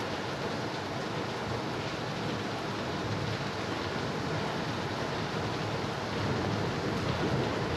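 Heavy thunderstorm rain falling steadily in a downpour, a continuous hiss that swells a little near the end.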